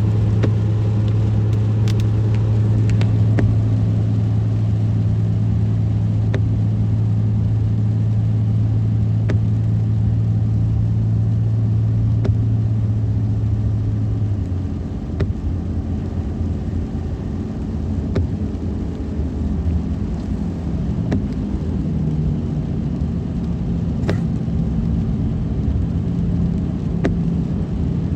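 Car driving along a road: a steady low drone of engine and tyres that drops and turns rougher about halfway through, with scattered faint ticks.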